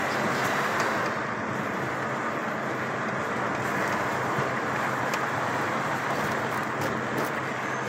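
Car driving along a street, heard from inside the cabin: a steady engine hum under even tyre and road noise.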